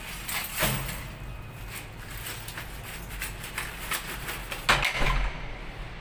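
Clacks and knocks from handling the push bar of a steel fire door's panic device, the loudest a sharp knock with a low thud about three-quarters of the way through, over a faint steady hum.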